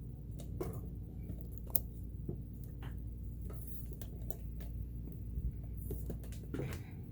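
Scattered light clicks and taps from hands handling an opened sewing machine and its oiler while oiling its moving parts, over a steady low hum.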